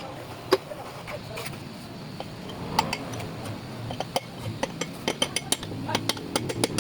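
Metal clinking and tapping from tools and parts being handled during engine overhaul work. Sharp clicks come sparsely at first, then several a second in the second half.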